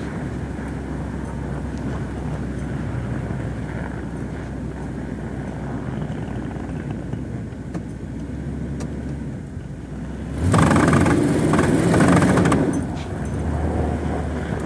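A 2000 Ford Explorer with the 5.0-litre V8 and all-wheel drive, heard from inside the cabin, running with a steady low drone. About ten seconds in, a much louder rough noise comes in for about two and a half seconds. The owner suspects this is the transfer-case chain slipping teeth, or a bad front driveshaft.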